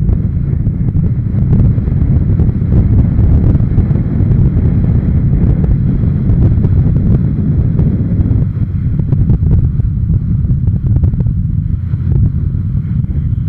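Wind buffeting the microphone of a camera on a moving motorcycle, a loud steady low rumble of wind and road noise at cruising speed.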